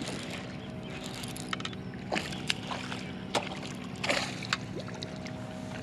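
Hooked largemouth bass splashing at the surface twice while being reeled in, with small sharp clicks, over a steady low hum.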